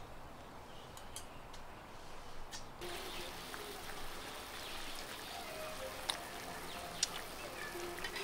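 Eating noodles from a stainless steel bowl: chopsticks click against the metal bowl several times, most sharply twice about six and seven seconds in, over a steady hiss.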